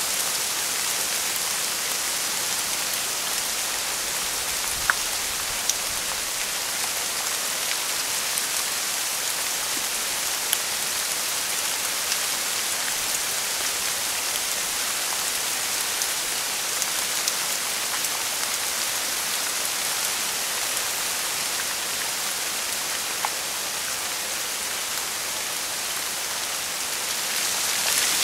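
Steady rain falling on a forest, an even hiss with a few sharper drop ticks scattered through it.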